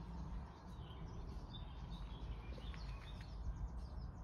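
Outdoor ambience: a steady low rumble with a few short, faint high bird chirps about midway.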